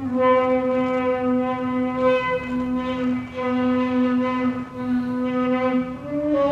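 Music: a reedy wind instrument holding one long note, stepping up in pitch near the end.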